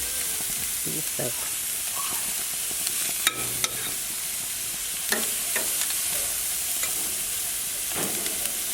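Seasoned beef sizzling steadily on a hot barbecue grill, with a couple of sharp clicks about three seconds in and a few fainter ones later.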